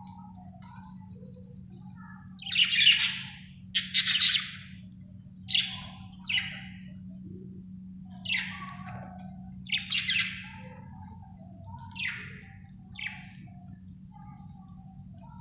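Budgerigar chirping: a string of loud, harsh chirps, the two loudest about two and a half and four seconds in, then shorter ones every second or two, with soft warbling chatter between them. A low steady hum lies underneath.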